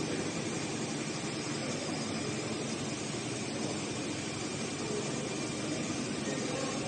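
Steady mechanical hum and hiss of machinery running, with no distinct strokes or changes.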